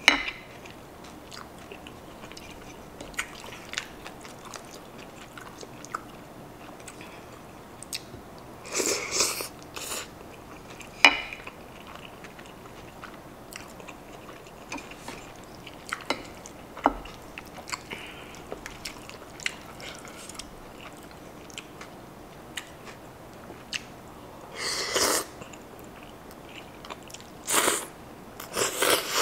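Close-miked eating of creamy pasta: steady chewing with small wet mouth clicks. It is broken by a few short, louder slurps of noodles, one about nine seconds in and three near the end.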